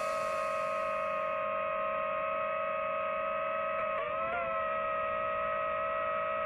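The last of the background music fades out, leaving a steady hum made of two stacked tones. The hum wavers briefly in pitch about four seconds in.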